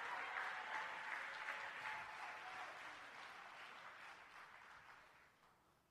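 Congregation applauding, the clapping dying away to silence about five seconds in.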